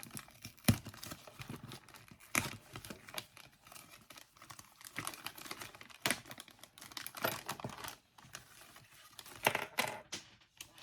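Small model-kit parts being handled on a work surface: irregular clicks and light knocks, with the crinkle of plastic packaging as the next pieces are taken out.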